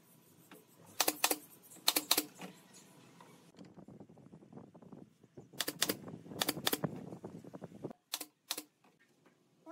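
Pneumatic brad nailer firing into pine chair slats in quick clusters of sharp cracks, with two single shots near the end. Wooden slats are handled and shifted between the bursts.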